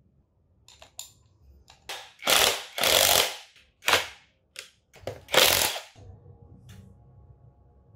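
Cordless impact wrench hammering in four short bursts, tightening the nuts that clamp a Vespa's split wheel rim halves together. A few light clicks of the socket going onto the nuts come first.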